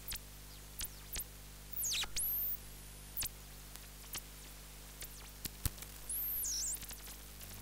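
Homebrew FET regenerative receiver's audio output while its variable capacitor is tuned around 11 MHz: a low steady hum and faint static with scattered crackling clicks. Whistling heterodyne tones sweep down and up in pitch as the tuning passes over stations, once about two seconds in and again a little after six seconds.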